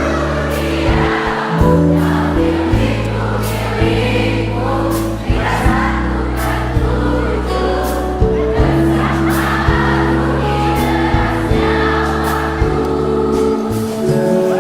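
Live pop band playing, with held bass notes and regular drum hits under many voices singing together, typical of a concert audience singing along.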